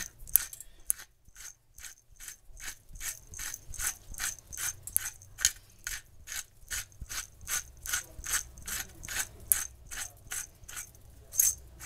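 Pepper mill grinding peppercorns with quick repeated twists, a dry ratcheting click about three times a second, after a short pause about a second in.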